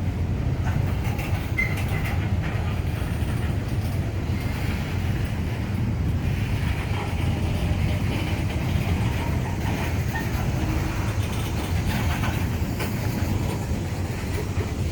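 Freight cars of a long CSX mixed freight train rolling past: a steady rumble of steel wheels on the rails.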